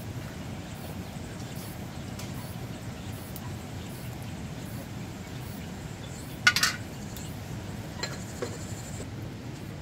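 A short, sharp clatter of hard objects about six and a half seconds in, followed by two fainter clicks, over a steady low rumble.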